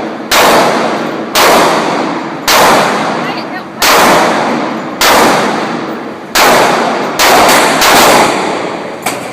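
Gunshots fired at a shooting range, roughly one a second, each with a long ringing echo that dies away over about a second; near the end three shots come quicker, close together.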